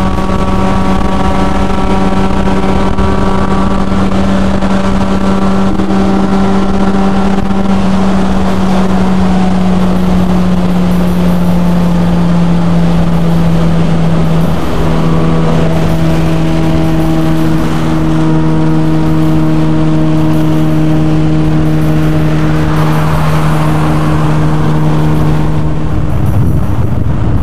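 Car engine droning steadily at motorway cruising speed over tyre and road noise, heard from inside the car; its pitch eases a little lower about halfway through and the drone breaks up near the end.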